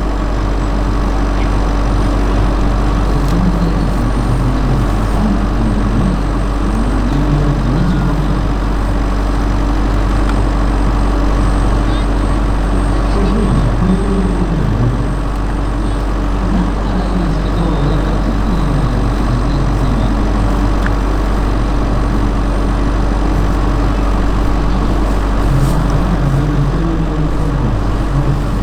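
Radio-controlled scale model Bell 230 helicopter running, a steady, unbroken engine and rotor drone with a constant low hum.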